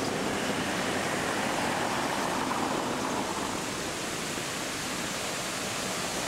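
Steady rushing of a large fountain's falling water, mixed with the hum of traffic passing around the square.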